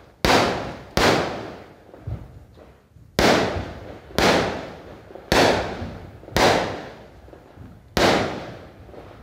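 Aerial fireworks bursting overhead: seven sharp bangs at uneven intervals, each fading out in a crackling, echoing tail.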